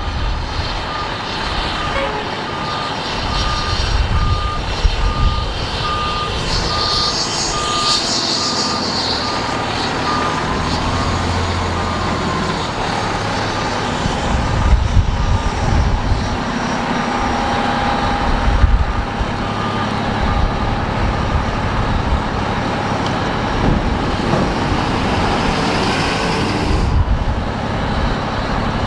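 Diesel fire engine running, with its backup alarm beeping steadily about twice a second through the first half and again intermittently later. There is a brief hiss of air about seven to nine seconds in.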